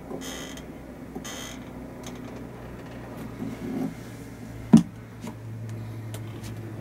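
A single sharp knock about two-thirds of the way through, over a low steady hum. Two brief hissy rustles come in the first second and a half.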